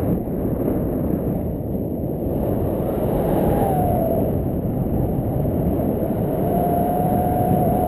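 Wind rushing over a foot-mounted GoPro's microphone during a descent under an SF-10A parachute canopy: a steady, muffled rumble. A faint thin tone sounds briefly in the middle and again near the end.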